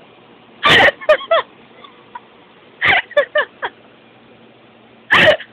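Laughter in three short fits about two seconds apart, each a loud burst followed by a few quick pitched 'ha' sounds.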